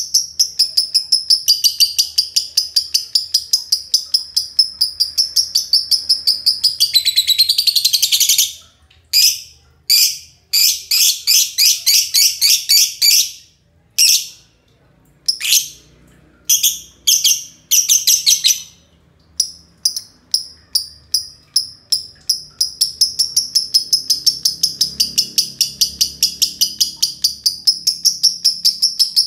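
Green lovebirds giving a long ngekek, a rapid high-pitched chattering trill of about five chirps a second. It runs unbroken for several seconds, breaks into short bursts with gaps through the middle, then runs long and unbroken again in the second half.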